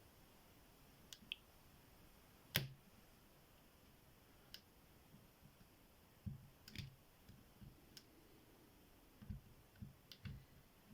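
Faint, scattered clicks and taps of a small lock pick and tension tool working inside a 30 mm QQQ padlock's keyway, the loudest click about two and a half seconds in and small clusters of taps later on.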